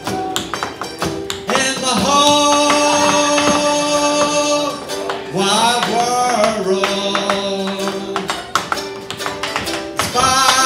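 Instrumental break of an upbeat song, with long held notes, and tap shoes striking the floor in quick, irregular clicks along with the music.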